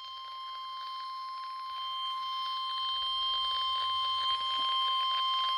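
NOAA Weather Radio 1050 Hz warning alarm tone: one steady, unbroken pure tone over radio hiss, growing gradually louder. It is the attention signal that comes before a severe weather warning is read.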